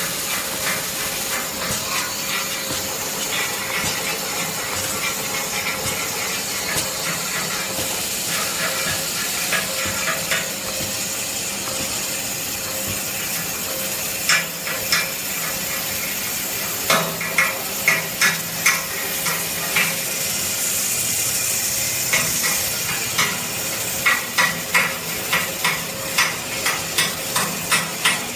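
Semi-automatic band saw toilet paper roll cutting machine running with a steady hiss. Mechanical knocks and clatter come in about halfway through and settle into a regular beat of about two a second near the end.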